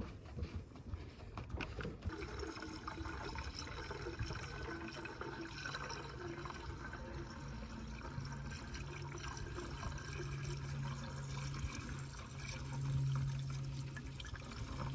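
Antifreeze being poured from a jug into the truck's coolant reservoir, a steady run of liquid.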